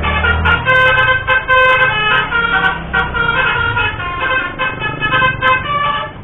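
Basuri telolet musical horn on a vehicle playing a quick melody of short, changing notes, with the engine running low underneath; the tune stops just before the end.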